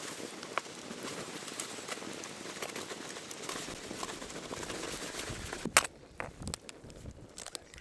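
Flour pouring from a paper bag into a steel pot: a steady soft hiss with light crinkles of the paper. It stops with a sharp click about six seconds in, followed by a few faint clicks.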